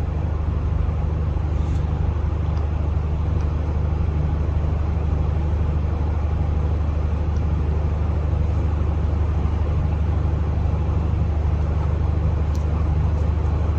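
A steady, unchanging low hum over a faint even hiss, with a few faint ticks.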